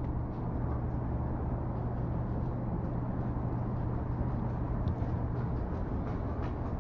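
Steady outdoor city street ambience: a continuous low rumble with a steady hum, and a few faint clicks.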